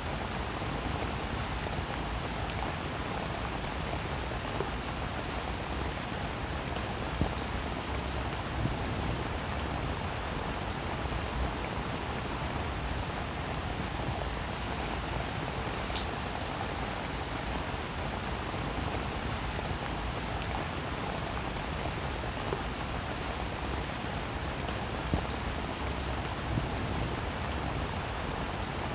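Steady rain-like hiss with scattered faint ticks and a few sharper clicks.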